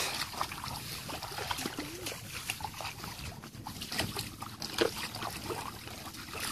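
Bare feet sloshing and squelching through shallow muddy water, with irregular small splashes.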